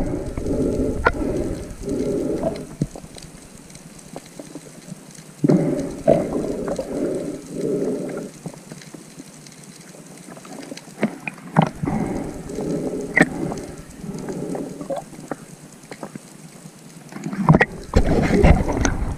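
Muffled underwater sound picked up through a camera's waterproof housing: spells of low, pulsing water movement with scattered sharp clicks and knocks.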